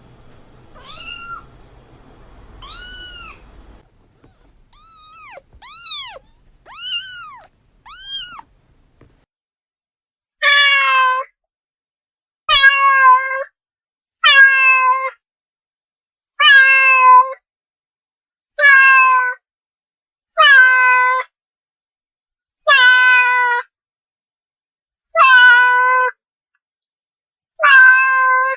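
A cat meowing: first two thin, high meows over a faint hiss, then four short rising-and-falling meows. From about ten seconds in comes a run of about nine loud, drawn-out meows, evenly spaced about two seconds apart.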